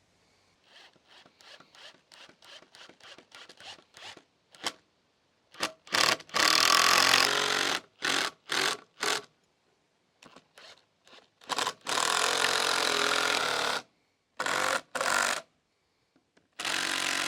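Power drill working screws into a wooden bench: a run of light clicks for the first few seconds, then the drill runs in short bursts and in three longer pulls of a second or two each.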